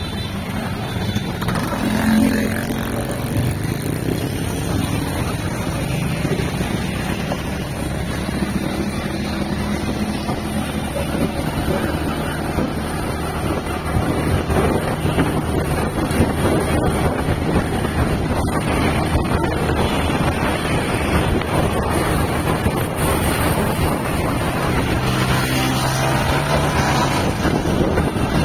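A small motorbike engine running while riding through town traffic, with road and wind noise on the microphone; it gets a little louder about halfway through.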